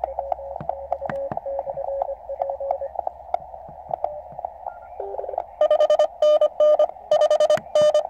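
Morse code (CW) received on a QRP Labs QCX Mini 40 m transceiver: narrow-filtered band hiss with weak keyed tones and scattered clicks as the dial is tuned. About five and a half seconds in, a much stronger station comes in, its dots and dashes loud and harsh. The builder suspects the receiver has poor sideband suppression.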